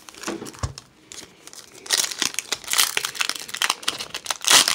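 Foil Pokémon booster pack wrappers crinkling in the hands and a pack being torn open at its crimped top. The crackling is light at first and turns dense from about two seconds in, loudest near the end.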